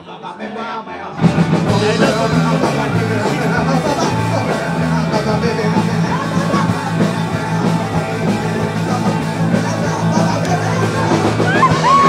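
Live rock and roll band playing at full volume, with shouted singing. The band drops to a brief quiet break at the start and comes back in about a second in.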